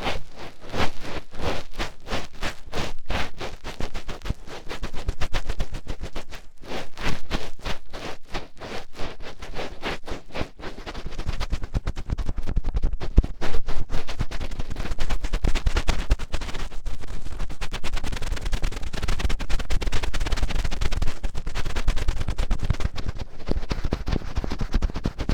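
Fingertips scratching and rubbing right at the microphone in finger ear-cleaning ASMR: quick scratchy strokes, several a second, that turn into a denser, continuous rubbing with a low rumble about halfway through.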